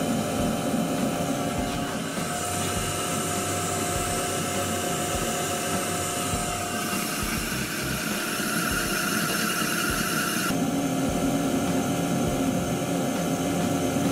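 Fuji Paudal Marumerizer GR141 spheronizer running empty, its inverter-driven motor and grooved friction plate making a steady mechanical whir. The tone shifts about two seconds in and again past ten seconds.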